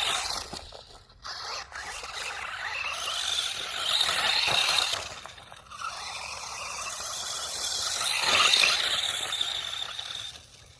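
Brushless electric motor of an FTX Outlaw RC car on a 2S battery, whining up and down in throttle bursts, loudest about four and eight seconds in, with its tyres scraping over loose ground.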